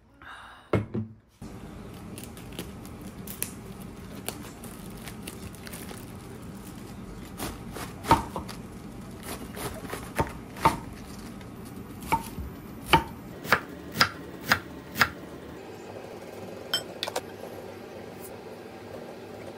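Kitchen knife cutting through a head of cabbage on a wooden cutting board: a run of sharp knocks, most of them in the middle part, as the blade meets the board.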